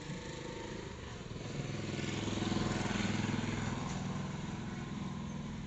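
Ceiling fan motor on a DC driver circuit humming with a fast buzzing pulse, swelling about two seconds in and then easing off as the fan turns only a little; the repairer puts its failure to run properly down to the magnets sitting too far away.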